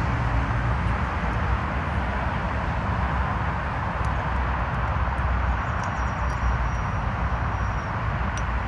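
Steady rumbling roar of an airplane landing, with a faint thin high whine for a couple of seconds past the middle.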